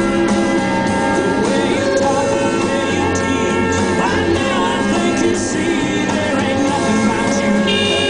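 Rock music with singing.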